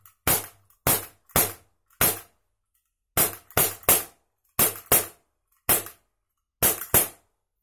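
ISSC M22 4.5 mm CO2 blowback air pistol firing about a dozen shots in quick groups, each a sharp snap of gas discharge and slide blowback. The snappy blowback shows the CO2 is still giving good pressure on the fifth magazine.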